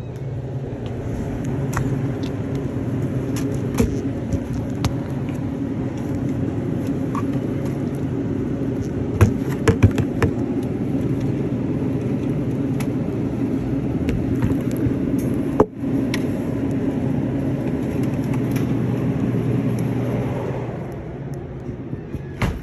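Handling noise of a phone held against plastic water bottles: a steady low rumble with scattered clicks and knocks, fading out near the end.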